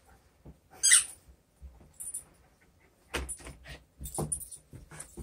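Small dog playing with plush toys: one short, high squeak about a second in, then scuffling and light knocks as it moves about with a toy.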